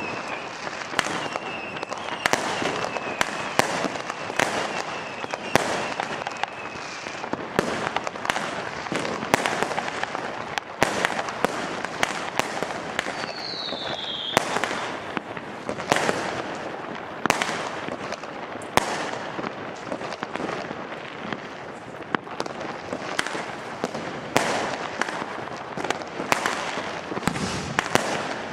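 New Year's Eve fireworks and firecrackers going off all around: a dense, unbroken run of bangs and cracks, with a short whistle falling in pitch about halfway through.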